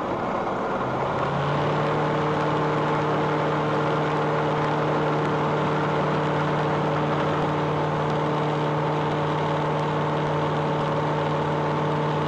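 Flight Design CTSW's Rotax 912 four-cylinder engine coming up to full power for a touch-and-go takeoff roll, heard over the cockpit intercom. The engine note rises in pitch about a second in, then holds steady.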